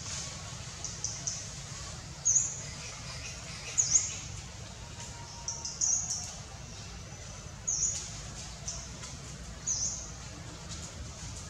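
Short, high-pitched bird chirps, the loudest coming about every two seconds, over a steady low background rumble.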